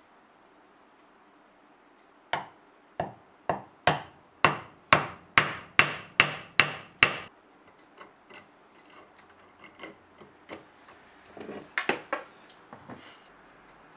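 Hammer striking a wide Japanese chisel eleven times, about two blows a second, as it chops into a wooden plane block. After that come lighter, scattered taps and knocks of wood.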